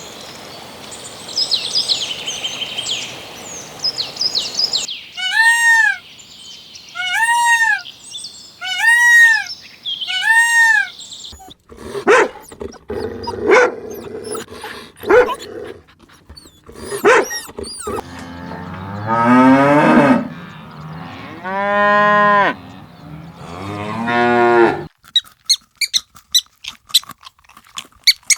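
A run of different animal calls: high chirps, then a short arched call repeated about four times, then long, low, drawn-out calls in the last third that are typical of cattle mooing.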